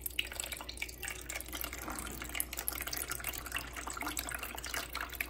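Water trickling and dripping from the loosened cap of an upside-down plastic bottle into a plastic basin, with many small irregular drips: the soaking water draining out of the orchid's potting mix.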